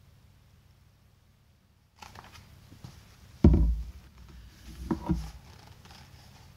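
A hardcover picture book being handled close to the microphone: quiet at first, then paper rustling from about two seconds in, a heavy thump a little later and two smaller bumps about a second and a half after that.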